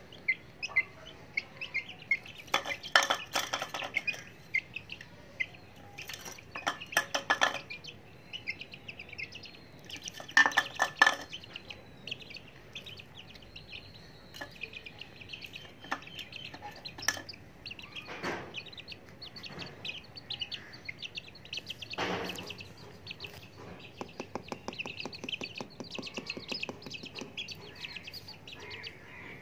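Young chicks peeping in a steady run of high chirps, with three bursts of rapid clicking in the first half as they peck at a plate.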